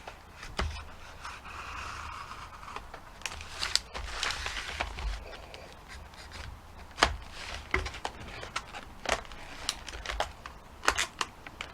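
A knife blade cutting and scraping at tough hard-plastic packaging, with crinkling and sharp irregular clicks and snaps as the plastic gives. The plastic is hard to cut, which is put down to sturdy packaging or a blade that isn't very sharp.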